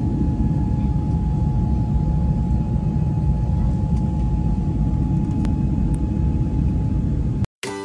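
Airliner cabin noise in flight: a steady, loud low rumble of engines and airflow with a faint steady tone over it. It cuts off suddenly near the end.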